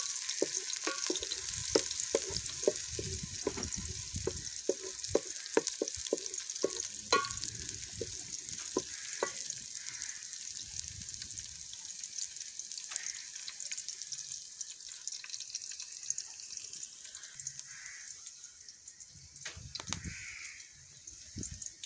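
Sliced onions sizzling in hot oil in a metal pot, the first stage of frying them brown. A wooden spoon stirs them and knocks repeatedly against the pot over the first half. The sizzle fades near the end.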